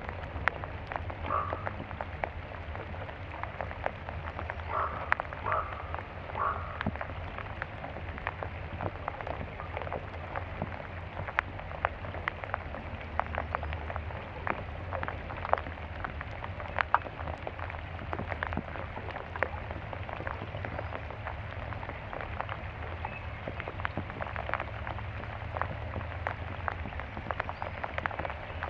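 Field-recorded soundscape: a dense, irregular crackle of small clicks and pops over a steady low hum, with a few short calls in the first several seconds.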